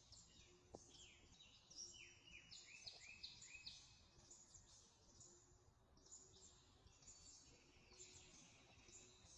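Faint birdsong from several birds: many short, high chirps and whistles, with a quick run of repeated falling notes about two to four seconds in.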